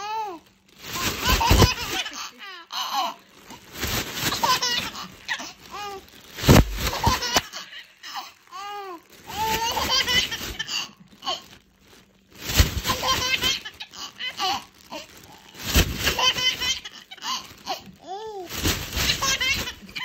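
Baby laughing in repeated bouts of belly laughs with short pauses between them, while clear plastic sheeting crinkles as it is waved in front of him.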